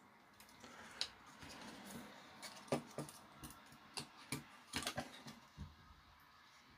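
Faint handling noise from the small plastic fan being worked on: a scatter of light clicks and taps with some scraping, a few sharper knocks in the middle.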